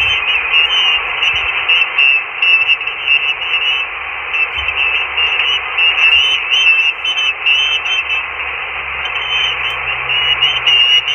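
Receiver static from an FX-4CR HF transceiver tuned to 14.232 MHz upper sideband on the 20-metre band: a steady hiss cut off above the narrow voice band, with no station on the frequency while it waits for an answer to a QRZ call.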